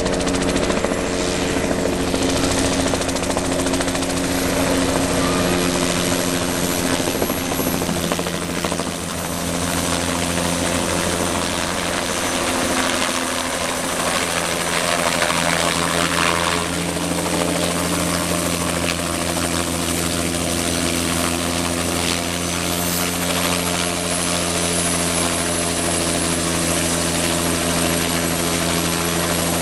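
Bell 206 JetRanger helicopter flying in and setting down on a helipad, its rotor giving a steady, even beat.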